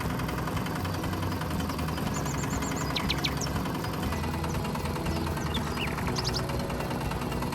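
Engine running steadily at idle, a tractor-like rumble, with a few short bird chirps about two, three and six seconds in.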